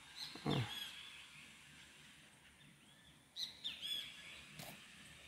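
Birds chirping: short, high calls in two bunches, about half a second in and again at about three and a half seconds, with a low thud about half a second in.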